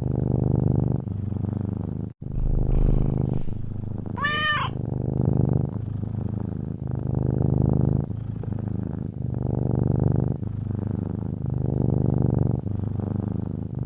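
Domestic cat purring in a steady rhythm, about one in-and-out cycle a second. About four seconds in comes a brief cat call whose pitch rises and falls, a short meow.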